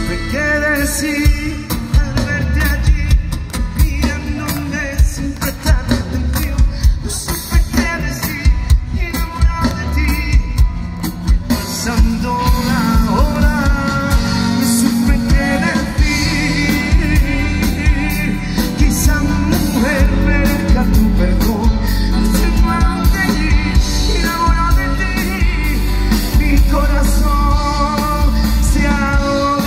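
Live pop-rock band playing: a lead voice over acoustic guitar, electric bass and drums, with a steady beat.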